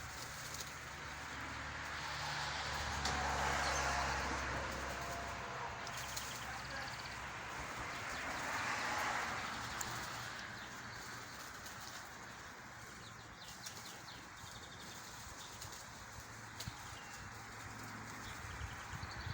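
A flock of tui calling in a tree: scattered clicks and short high notes, with two whirring rushes of wingbeats as birds fly, about three and nine seconds in. A low hum sits underneath for the first few seconds.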